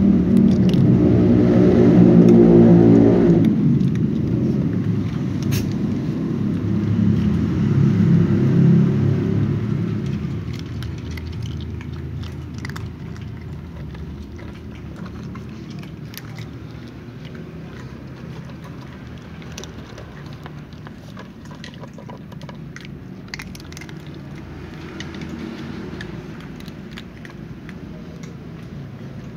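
Cats crunching dry kibble close up, a scatter of small crisp clicks. A vehicle engine hums loudly over the first few seconds and fades away about a third of the way in.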